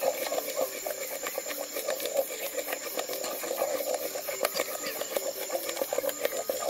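Wooden spoon stirring and scraping peanut butter mixed with a little water in a metal saucepan: a steady run of irregular soft scrapes and knocks.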